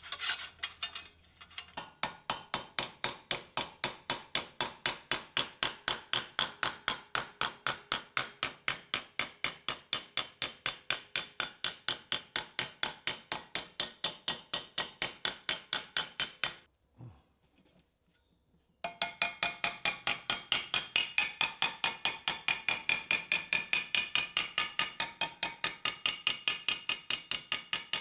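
Hammer striking a sheet-steel patch panel to bend it to shape, in steady ringing blows of about three a second; the blows stop for about two seconds past the middle and then resume.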